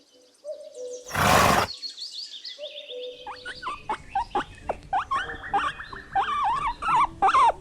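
A pony blows one loud snort about a second in. It is followed by a run of short, quick chirping calls whose source is unclear.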